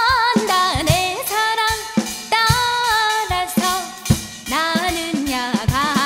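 Background music: a song with a sung melody, held and gliding notes, over a drum-kit beat.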